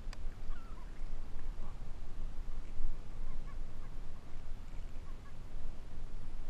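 Faint, short squawks from a juvenile gull held by the neck while fishing line is freed from it, over an uneven low rumble on the microphone. A sharp click right at the start.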